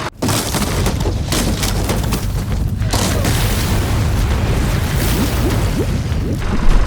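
Popcorn pot exploding: a sudden loud blast a fraction of a second in, followed by sustained heavy rumbling noise with scattered cracks.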